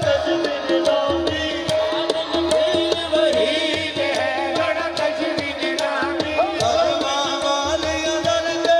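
Devotional Punjabi Sufi song: a man's voice singing through a microphone and sound system over an even, steady drum beat and sustained accompanying tones.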